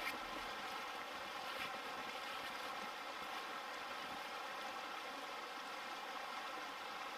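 A mountain river running steadily, an even rush of flowing water.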